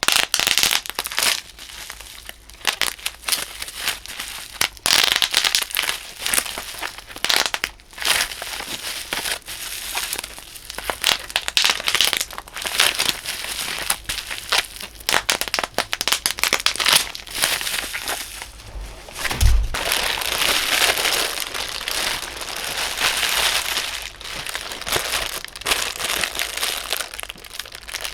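Bubble wrap being crushed and crumpled by hands in thick rubber gloves: a steady run of crinkling with sharp irregular pops as the bubbles burst.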